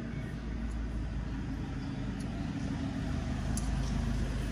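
Steady low engine-like rumble, even throughout, with a few faint light ticks.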